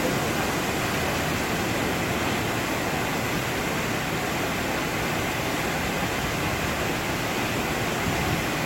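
Waterfall: a loud, steady rush of falling water that stays even throughout.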